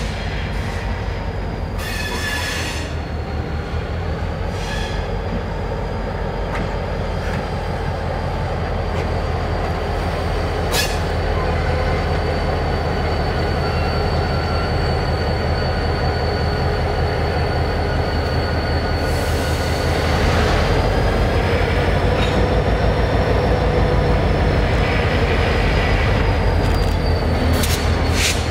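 EMD GP38-series diesel locomotives running at low throttle as they creep through a yard, a steady low engine rumble that slowly grows louder, with a thin high wheel squeal from the flanges on curved track wavering throughout. A few short hissing bursts cut in, the longest about two-thirds of the way through.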